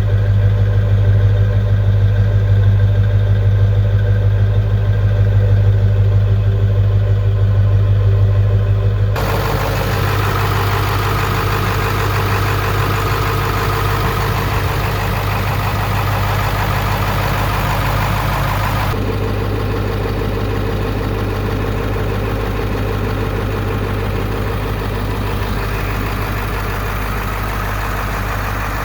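Ford 7.3 Power Stroke V8 turbo diesel idling steadily with no revving; its tone changes abruptly about a third of the way in and again about two thirds in.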